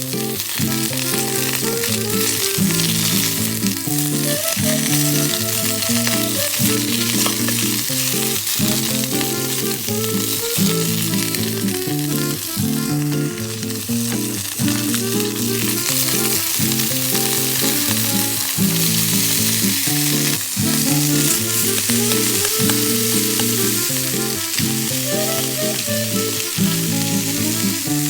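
Bone-in meat sizzling steadily as it fries, with background music of shifting notes underneath.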